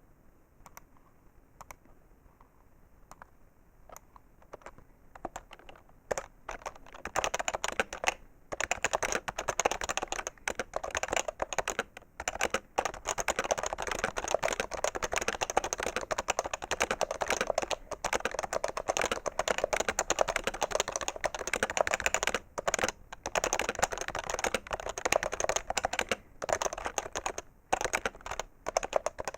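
Typing on a PFU HHKB Professional 2 keyboard with Topre electrostatic capacitive switches: a few scattered keystrokes, then fast continuous typing from about six seconds in, with short pauses. The keystrokes are heavier than a mechanical-switch keyboard's and sharp.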